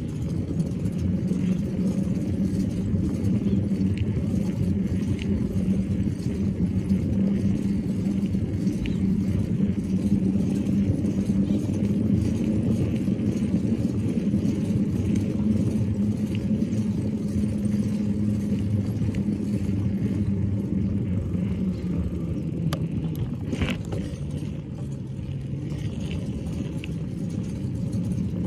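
Bike rolling along concrete sidewalk and street: a steady low rumble with a hum, a little quieter near the end, and one brief sharp sound about 24 seconds in.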